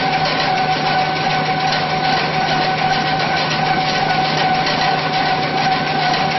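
N-fold hand towel paper converting machine running steadily: an even mechanical din with a constant whine over it.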